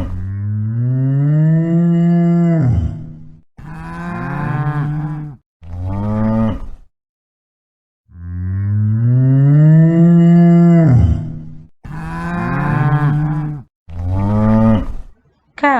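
Cows mooing: six separate drawn-out moos, each rising and then falling in pitch. The first and fourth are long, about three to four seconds each, and the others are shorter, with a second of silence near the middle.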